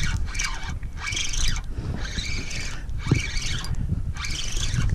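Fishing reel being cranked in short spells, about one a second, as a hooked speckled trout is fought, with a steady low wind rumble on the microphone.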